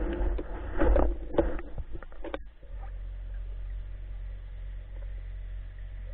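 Muffled knocks and rustling handled against an underwater camera housing for about two and a half seconds, then a steady low underwater rumble.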